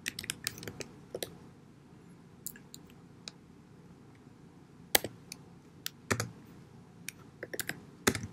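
Computer keyboard typing: irregular keystrokes, a quick run in the first second, then sparse taps with small clusters about five and six seconds in and a busier run near the end.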